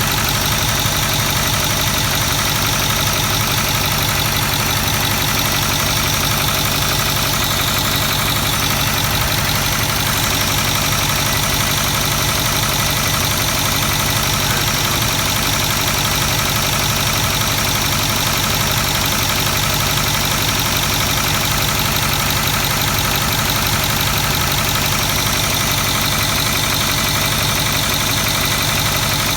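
Ford 6.4L Power Stroke V8 turbo-diesel idling steadily with its valve cover off, the exposed valve train giving a fast, even ticking clatter. The owner is trying to diagnose a tapping, knocking noise that he suspects is in the valve train, with oil only just starting to flow onto the rockers.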